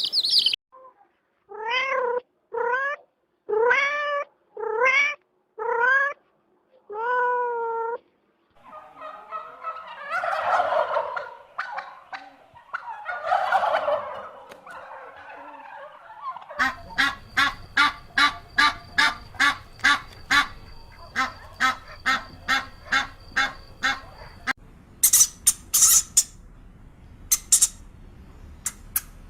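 A sequence of different animal calls, one recording after another. First six short pitched calls about a second apart, each rising then levelling off; then two longer, rough calls; then a fast, even run of clicking calls; and a few sharp high squeaks near the end.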